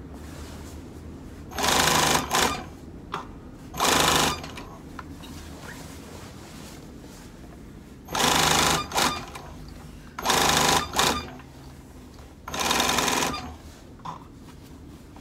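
Industrial blind-stitch sewing machine stitching through neoprene wetsuit fabric in short runs of under a second, about five times, some followed by a quick extra burst. A low steady hum fills the gaps between runs.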